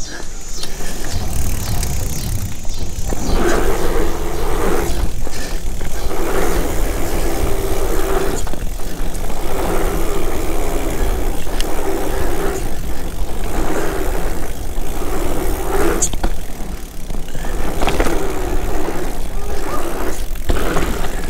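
Mountain bike riding down a dirt trail: knobby tyres rolling over packed sand and dirt, with steady wind buffeting the microphone. The rolling noise comes and goes in surges of a second or two.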